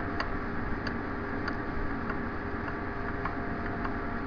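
Faint, regular ticking, about one and a half ticks a second, over a steady background hum and hiss.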